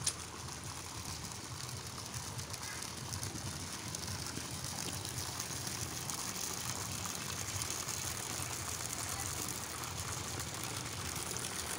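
Water pouring from a pipe spout into a hot spring pool, a steady splashing.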